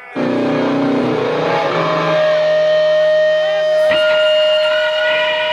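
Heavily distorted electric guitars from a live doom metal band come in abruptly at full volume, holding a droning chord with steady ringing overtones. About four seconds in there is a click and the held chord changes.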